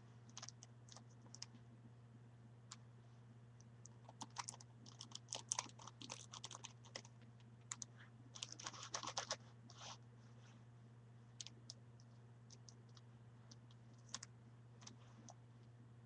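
Plastic Rubik's Cube being turned by bare feet: irregular clicks and clacks of the layers, in clusters that are busiest in the middle, with a few single clicks near the end. A low steady hum runs underneath.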